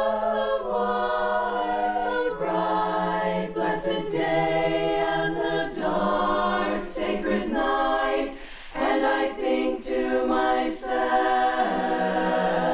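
All-female barbershop chorus singing a cappella in close four-part harmony. Held chords shift every second or two, with a brief breath break about eight and a half seconds in.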